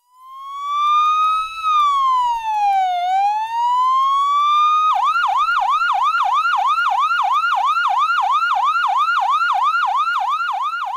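Electronic emergency-vehicle siren fading in on a slow wail that rises, falls and rises again. About five seconds in it switches to a fast yelp of roughly three sweeps a second.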